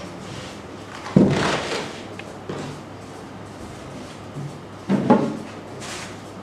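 Knocks and thumps of a wooden-framed screen-printing screen being handled and lifted on a table. The two loudest come about a second in and about five seconds in, with fainter taps between.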